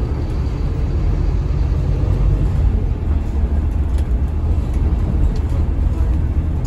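Scania K320HB bus with its rear-mounted Scania DC9 five-cylinder diesel, heard from inside the passenger cabin while under way: a steady low engine drone and road rumble, with a few light rattles from the interior fittings.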